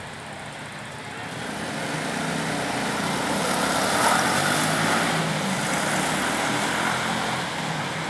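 A motor vehicle passing by: its engine sound swells to a peak about four seconds in, then fades away.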